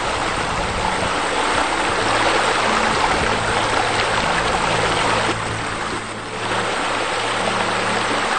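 Steady rush of water pouring from pool water features into the pool, a little softer after about five seconds, with soft sustained background music beneath it.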